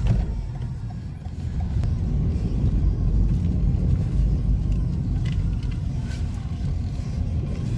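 Car driving along the road, heard from inside the cabin: a steady low rumble of engine and tyres.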